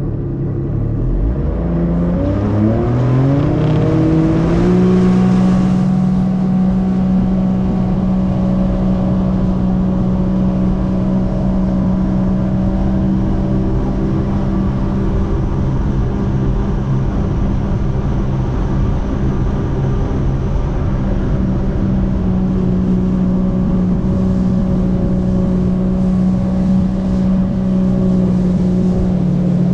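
Jet ski engine accelerating hard, its pitch climbing steadily for a few seconds, then running at a steady high speed for the rest of the time. Water rushes and sprays past the hull under the engine sound.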